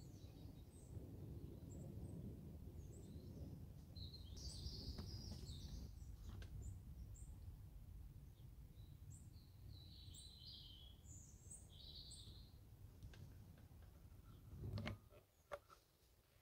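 Faint outdoor ambience: small birds chirping on and off over a low, steady background rumble. A short knock sounds near the end, after which the rumble drops away.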